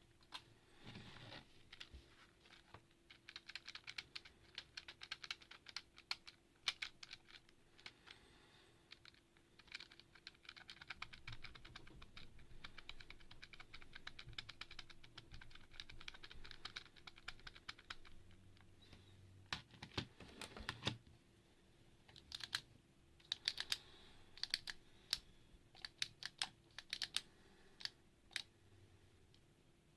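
Typing on a mechanical keyboard: runs of rapid key clicks with short pauses, and two louder knocks about two thirds of the way through, over a faint steady hum.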